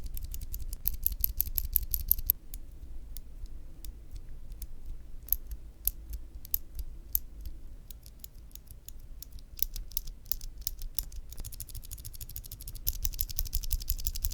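Clicky Cherry MX mechanical key switches, vintage Dark Blues and current Blues, being pressed and released: fast runs of sharp clicks for the first two seconds and again near the end, slower separate clicks in between.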